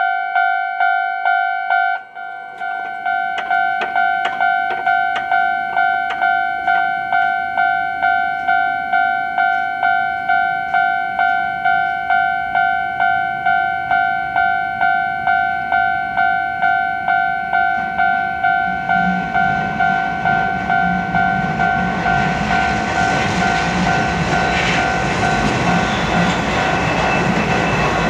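Railway level-crossing warning bell ringing in a steady repeated clang, about one and a half strikes a second, with a brief break about two seconds in. From about two-thirds of the way through, an Izuhakone Railway Daiyuzan Line electric train approaches and grows louder under the bell.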